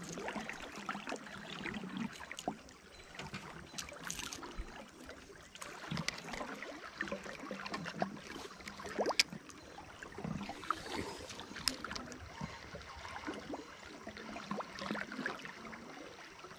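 River water rippling and lapping against a drifting raft, with small irregular splashes and clicks.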